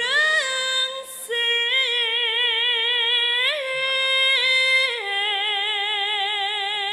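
A Javanese sinden, a female singer, sings solo into a microphone in long held notes with a wide vibrato. She pauses briefly about a second in, and about five seconds in she drops to a lower held note.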